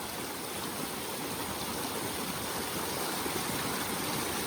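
Flash-flood water rushing steadily across a driveway, washing it out.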